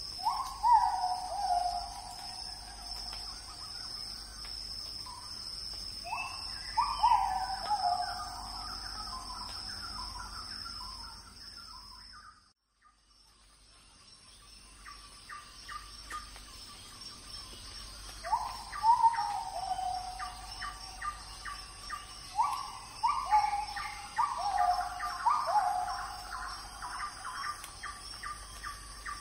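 Birds calling: downward-sliding whistles, each about a second long, come in clusters, over a steady high insect drone. The sound drops out almost completely for about a second near the middle.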